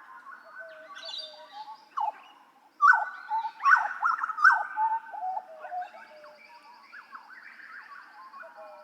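Papuan butcherbird (jagal papua) singing: a run of whistled notes and pitch glides, with a burst of louder sharp, chattering calls about three to five seconds in. A faint, fast, high trill runs underneath in the second half.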